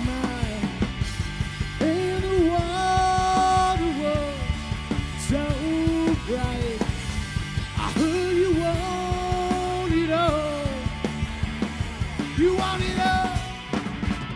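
Rock band playing live: electric guitar, bass and drums, with wordless singing in long held, gliding notes over them.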